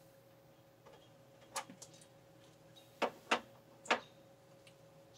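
A few faint, sharp clicks and knocks, four or five scattered over a couple of seconds, as the steel winch cable and its hook are handled at the car's front end.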